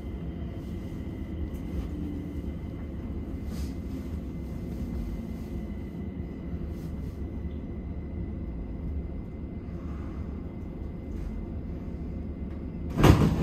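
Stockholm metro train running, heard inside the carriage: a steady low rumble with a faint steady high whine. Near the end a sudden, much louder rush of noise starts.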